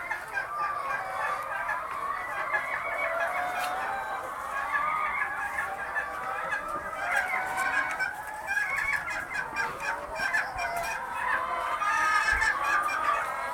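A flock of birds, most likely domestic fowl, calling continuously, with many short overlapping calls at once.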